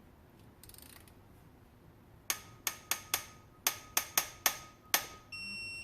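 Digital torque wrench ratcheting a cylinder head bolt down, about nine sharp metallic clicks over a few seconds. Near the end comes a steady electronic beep: the wrench signalling that the 49 N·m first-stage head-bolt torque is reached.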